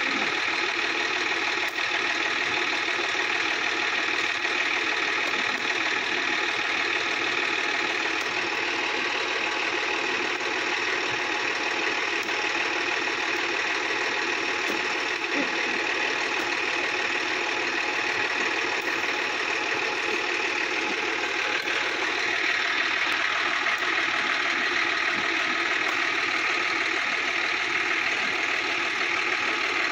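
Sonalika DI-50 RX tractor's diesel engine running steadily.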